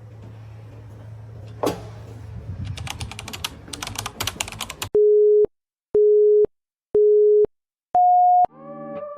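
A low steady hum with a sharp click, then a run of quick tapping clicks. These are followed by three short beeps a second apart and a fourth, higher beep, a countdown-style signal. Music with plucked strings starts right after the last beep.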